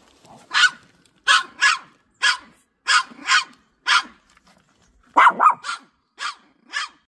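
Toy poodle barking sharply about a dozen times in short, separate barks, with a quick run of three about five seconds in.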